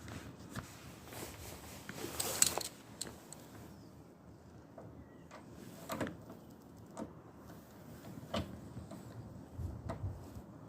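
Scattered clicks, knocks and a brief scraping rustle about two seconds in: motorcycle fairing and trim parts being handled and fitted by hand.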